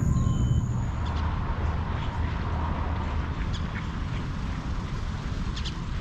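Short, scattered bird calls over a steady low rumble.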